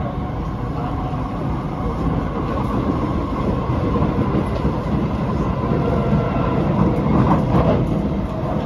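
Interior running noise of an SMRT C751B metro train on the move: a steady rumble of steel wheels on rail with motor hum. About seven seconds in there is a brief higher squeal and a slight rise in loudness.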